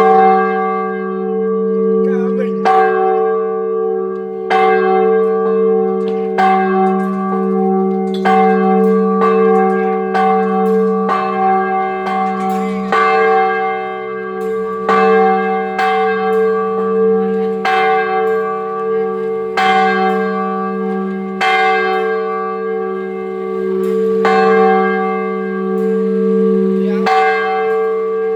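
Large church bell being test-rung, struck about every two seconds, each stroke ringing on under the next with a steady low hum beneath.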